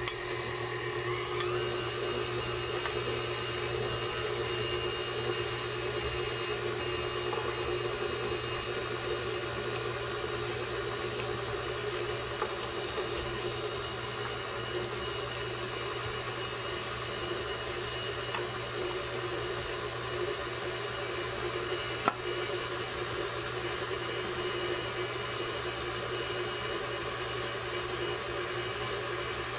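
KitchenAid Classic Plus stand mixer running steadily at low speed, its flat beater mixing cookie dough in the stainless steel bowl. One brief click about 22 seconds in.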